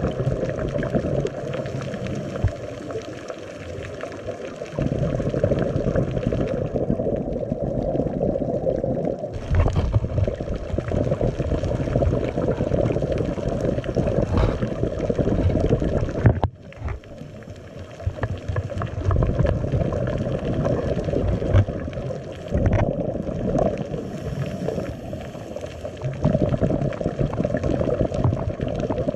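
Muffled underwater noise heard through a dive camera's housing, with gurgling surges from a scuba diver's exhaled bubbles that swell and ease every few seconds.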